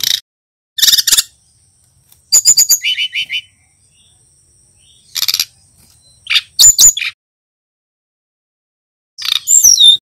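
Male brown-chested jungle flycatcher (sikatan rimba dada coklat) singing in short bursts of high chirps and quick twittering notes, about six phrases separated by pauses, a male still learning its song.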